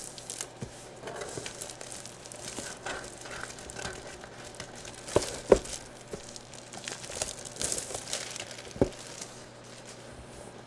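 Plastic shrink wrap on a sealed jersey box crinkling as it is handled and unwrapped, with a few sharp clicks, the loudest about halfway through and another near the end.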